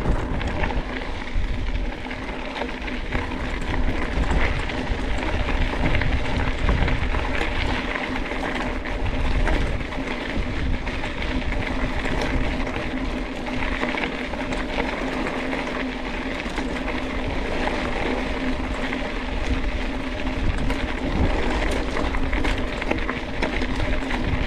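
Mountain bike ridden along a dirt trail: tyres rolling over dirt and loose stones, with a steady rushing noise and many small rattles and knocks from the bike over rough ground.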